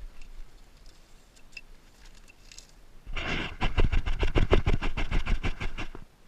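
Gas-blowback airsoft rifle firing a full-auto burst: a loud, even string of sharp clacks, about ten a second, lasting about two and a half seconds, with faint scattered ticks before it.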